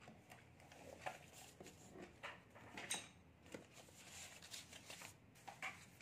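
Faint, scattered rustles and soft taps of paper sheets being handled and shifted, one slightly louder about three seconds in.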